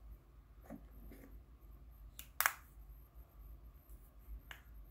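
Small handling sounds from swatching eyeshadow: a few faint clicks and rustles of fingers and makeup, the loudest a short sharp click about two and a half seconds in, over the steady low hum of a room fan.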